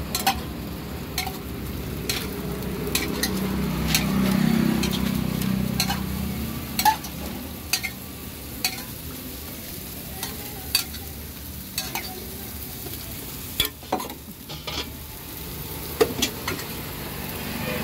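Dosa batter sizzling on a hot griddle, with frequent sharp, irregular clicks and scrapes of a metal spatula on the griddle.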